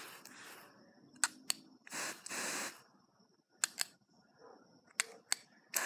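Garden hose spray nozzle worked by its trigger: several sharp clicks and short bursts of water spray, one about two seconds in and another starting near the end.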